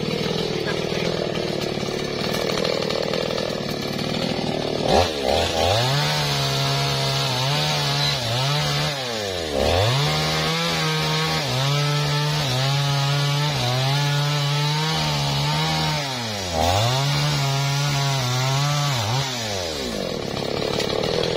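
Small two-stroke chainsaw revving up sharply about five seconds in and cutting into a felled teak trunk. Its pitch wavers under load and drops briefly three times before the engine falls back near the end.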